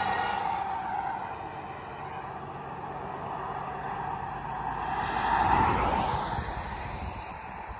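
A fire truck's sound fading as it drives away, then a car passing close by with tyre noise on the road, loudest about five and a half seconds in and dying away after.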